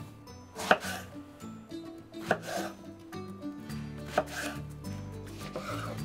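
Kitchen knife slicing an eggplant lengthwise into strips on a wooden cutting board. There are three sharp knocks of the blade hitting the board, about a second and a half apart, each with a softer cutting sound through the flesh, and one more soft cut near the end.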